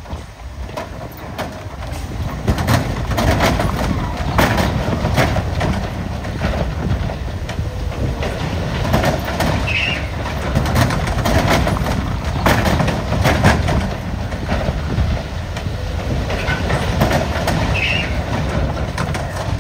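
Dump truck tipping its load: soil and rocks sliding out of the raised body and clattering onto the ground with many knocks of stones, over the steady low rumble of the truck running.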